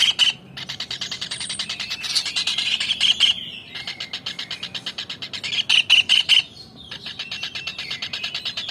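Kingfisher (tengkek udang) calling in a fast, continuous chatter of rapid repeated notes, broken by louder, shriller bursts about every three seconds.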